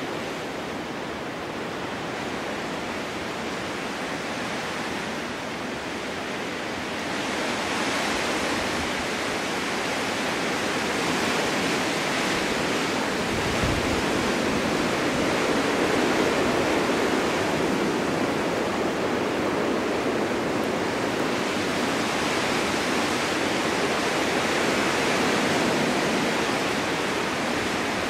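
Snowstorm wind rushing steadily through a snow-covered forest, swelling louder in a gust about seven seconds in and again later on.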